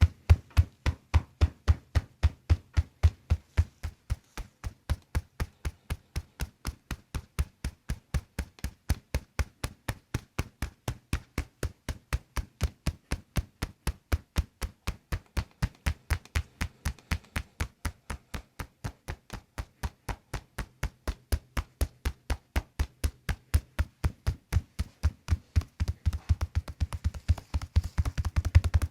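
Percussive therapy device tapping in a fast, even rhythm of about four taps a second, speeding up near the end.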